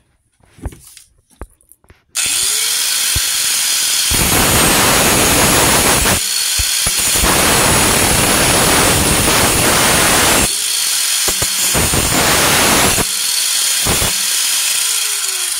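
Drill Master angle grinder with a cut-off disc cutting a metal bar held in a vise, after a few knocks of the tool being handled. It starts about two seconds in and cuts in several passes: a harsh grinding noise while the disc bites, with the motor pitch rising back between cuts. Near the end it is switched off and winds down, its pitch falling.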